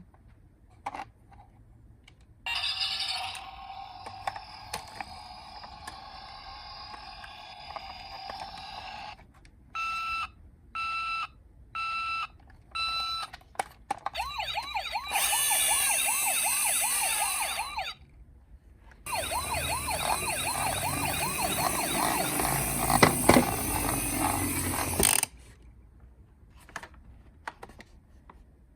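Electronic siren sounds from toy emergency-vehicle minicars: a steady electronic tone, then four short beeps, then two stretches of fast warbling siren over a loud hiss, with short pauses between them.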